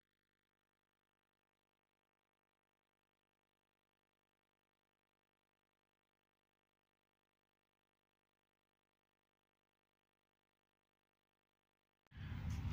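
Near silence: the sound track is silent, until a sudden loud rush of noise starts near the end.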